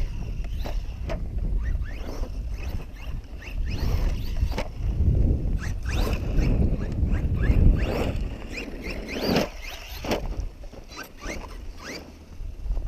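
Brushless electric motor of a Redcat Volcano EPX PRO RC truck whining up in repeated short rising bursts as the truck is throttled and accelerates, with clicks and rattles from the truck under a low rumble.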